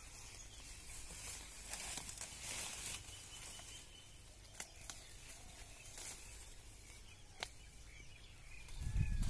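Leaves and stems of a bush tangled with wild passion-fruit vine rustle as hands push through the foliage to pick fruit, with two sharp snaps partway through. A low rumble comes in near the end.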